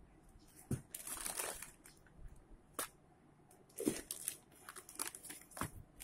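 Cardboard box and plastic wrap rustling and crinkling as non-stick pans are handled in their packaging, with a few short knocks.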